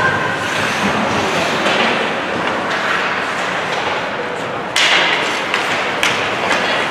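Youth ice hockey game noise: a steady wash of rink sound and background voices, broken by sharp clacks and knocks of sticks, puck and boards, the loudest about five seconds in.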